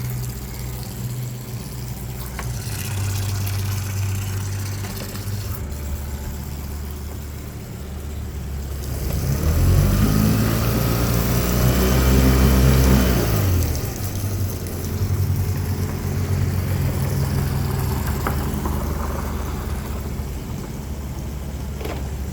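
Suzuki 9.9 hp four-stroke outboard engine idling, revved up about nine seconds in, held for a few seconds and then dropped back to a steady idle.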